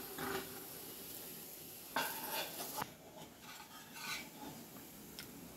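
A steel spatula scraping the frying pan and clinking as shallow-fried kababs are lifted out onto a ceramic plate. The loudest scrape comes about two seconds in, with another about four seconds in. Under it the hot oil in the pan sizzles faintly.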